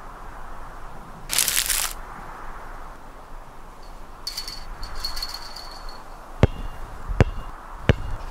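A basketball bouncing on an outdoor court: three sharp bounces about 0.7 s apart near the end as it is dribbled. A short hiss comes about a second and a half in.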